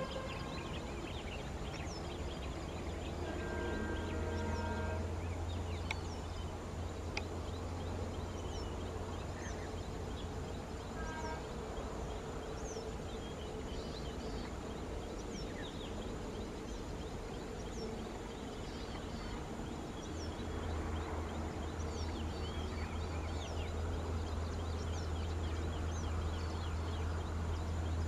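Birds chirping and calling over a steady low rumble, with a short pitched call a few seconds in and again about eleven seconds in.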